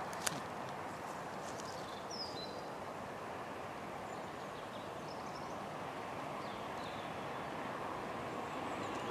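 Steady outdoor background noise with a few faint, short bird chirps, and a single click just after the start. No level-crossing alarm is sounding.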